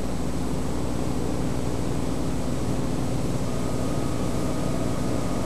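A steady low hum made of several layered pitches, with no distinct events; a faint higher tone joins about three and a half seconds in.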